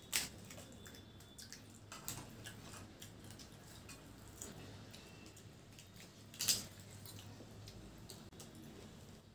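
Quiet eating and handling noises of pani puri: hollow fried puri shells cracked open with the fingers and dipped into spiced water, with small wet drips and a few short cracks or taps. The sharpest comes about six and a half seconds in. A low steady hum runs underneath.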